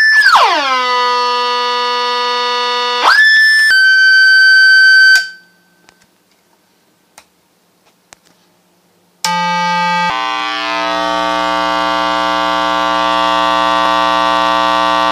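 Loudspeaker driven by a homemade 4046 phase-locked-loop frequency generator and inverter bridge, sounding a buzzing square-wave tone as its frequency is adjusted. The tone glides down from a high whine to a low buzz, jumps back up about three seconds in, and cuts off about two seconds later. After a few faint clicks it comes back, settling into a steady low buzz that runs on.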